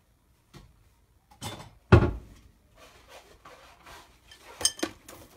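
Kitchen handling sounds: a light knock, then a loud thump about two seconds in, followed by lighter knocks, clicks and rubbing as things are moved about on the counter.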